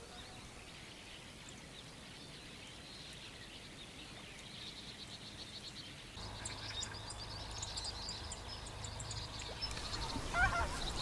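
A flock of birds calling: a faint, busy chatter of many short high calls that grows denser after about six seconds, with a few louder honking calls near the end.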